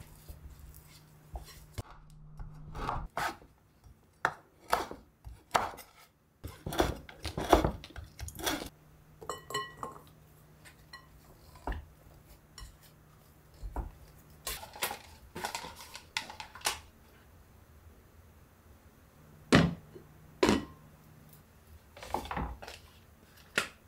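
A spatula stirring and scraping whole-wheat bread dough in a glass mixing bowl: irregular taps and scrapes against the glass, with two sharper knocks near the end.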